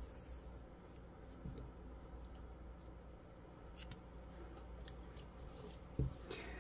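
Faint sounds of finishing off a crochet yarn tail: scattered light ticks and clicks of a tapestry needle and scissors working the yarn. A soft thump comes about six seconds in as the piece is laid down flat.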